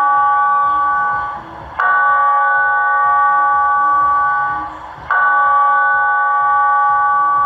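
A single church bell tolling slowly, about one stroke every three seconds. The previous stroke is still ringing at the start, and fresh strokes come about two seconds in and about five seconds in, each ringing with the same steady tone until it dies away just before the next.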